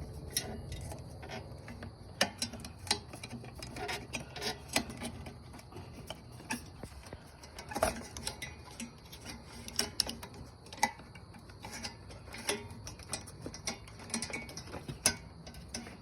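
Irregular metallic clicks and ticks from hand-turning and handling the parts of a Toro walk-behind lawn mower, with no engine running.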